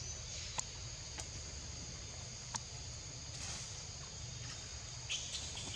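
Steady high-pitched insect chorus over a low rumble, with a few sharp short clicks in the first few seconds.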